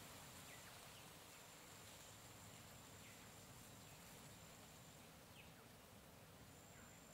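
Faint jungle ambience: a thin, steady high insect buzz that cuts out just before a second in and again about five seconds in, coming back each time, with short falling bird chirps every second or two.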